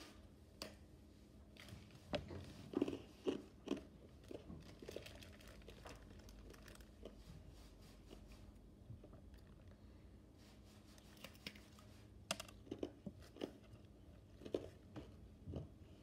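Someone eating a crunchy snack close to the microphone: crisp bites and chewing crunches come in two clusters, a couple of seconds in and again near the end.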